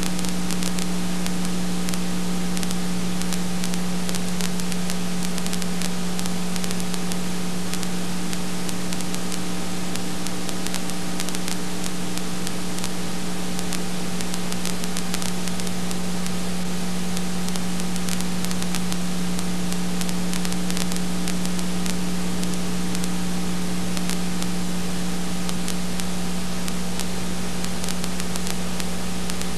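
Steady hiss with a constant electrical hum and scattered faint crackles, and nothing else: the empty soundtrack of a silent home-movie transfer.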